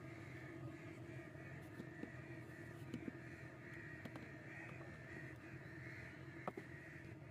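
Crows cawing repeatedly, faint, with a couple of light knocks, one about three seconds in and one near the end.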